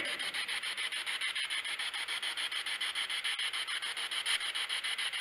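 Spirit box sweeping through radio stations: steady hiss of radio static, chopped by rapid, even pulses as it scans, with no voice coming through.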